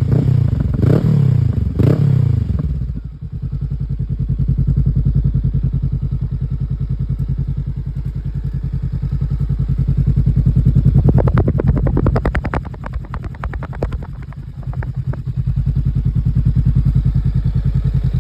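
Honda CB500X's parallel-twin engine through a Scorpion aftermarket exhaust: a few quick throttle blips at the start, then a steady idle. About two-thirds of the way through, a stretch of rapid crackling and clatter joins the idle.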